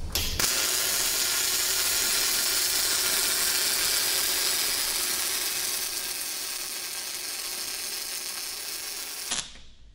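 MIG welding arc from a Millermatic 255 running 0.035 wire under 75/25 shielding gas on 3/8-inch plate: a steady crackle that starts just after the beginning and stops abruptly near the end as the trigger is released.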